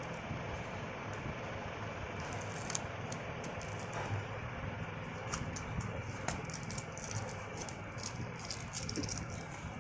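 Scattered small clicks and rustles of handling over a steady low hum.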